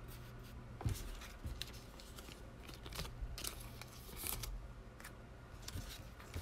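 Faint, scattered clicks and rustles of a stack of basketball trading cards being handled and sorted by hand, over a low steady hum.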